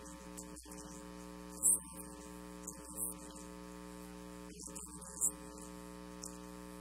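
Steady electrical mains hum with faint static from the sound system, broken twice by short hissy crackles, once just under two seconds in and again about five seconds in.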